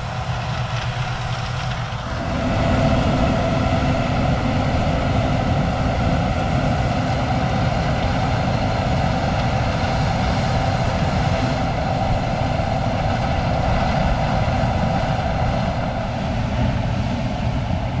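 Case IH 2388 combine running steadily while harvesting corn. The machine sound grows louder about two seconds in, then holds as an even, constant hum.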